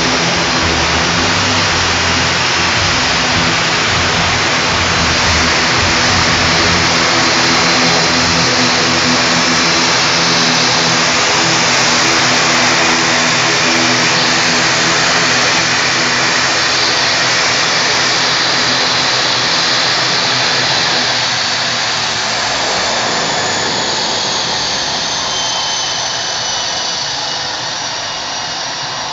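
ATR 72-500 turboprop airliner taxiing, its two Pratt & Whitney PW127 engines running loud with a steady propeller hum under a turbine whine. About twenty seconds in the low hum fades and the sound drops a little, while a high whine slowly falls in pitch.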